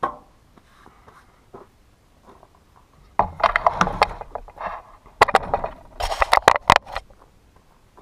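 Husqvarna T435 top-handle two-stroke chainsaw being pull-started, several rough tugs on the starter cord in the second half, without the engine catching and running.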